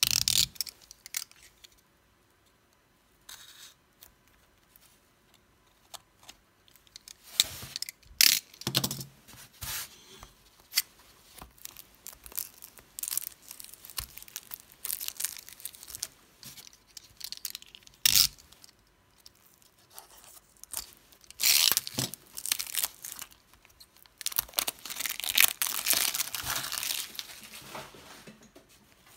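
Plastic shrink-wrap film being slit and torn off a small cardboard box, in irregular bursts of crinkling and tearing with quiet gaps between.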